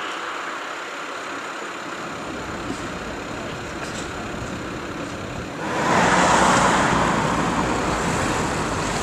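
Police escort vehicles driving along a city street: engine and tyre noise with no siren. A little under six seconds in, the noise turns suddenly louder as a vehicle passes close by, then eases slightly.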